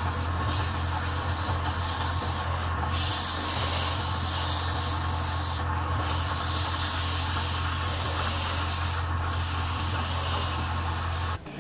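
Sandpaper pressed by hand against a wooden workpiece spinning on a wood lathe, a steady rasping hiss over the low hum of the lathe motor. The hiss breaks off briefly about four times.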